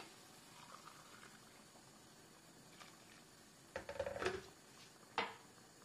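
Rice in a steel pan of liquid simmering faintly, with a wooden spatula clattering against the pan a little under four seconds in and knocking sharply once about a second later.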